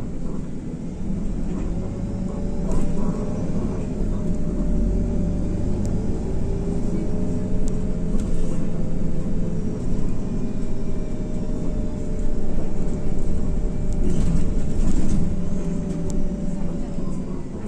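Cabin sound of an IVECO Crossway LE bus under way: Cursor 9 diesel engine and drivetrain rumble with a steady whine, a second whine dipping and rising in pitch partway through, and light rattles.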